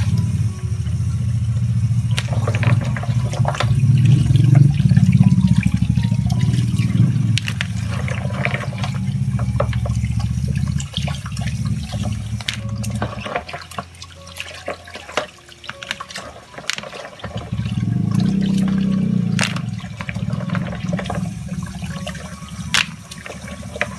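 Tap water running into a plastic basin of water while clams are scrubbed together by hand, their shells clicking and knocking against each other. The rush of water drops off for a few seconds past the middle, then comes back.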